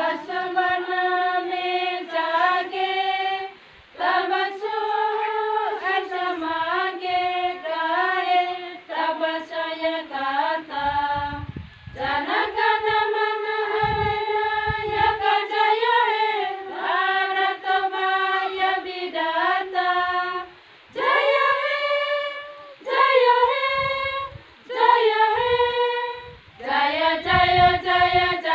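A group of women singing together in unison, unaccompanied, in long held phrases separated by short breath pauses.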